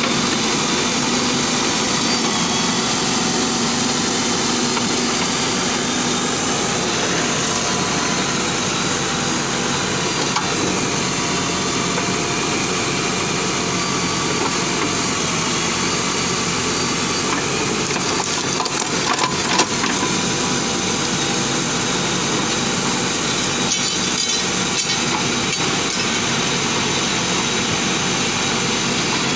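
JCB backhoe loader's diesel engine running steadily while the backhoe arm digs, with a short cluster of sharp knocks about two-thirds of the way through.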